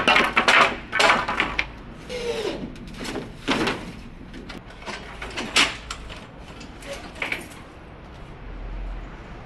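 Wooden battens knocking and scraping as they are handled and fitted, in irregular bursts that are densest in the first few seconds, then a few single knocks.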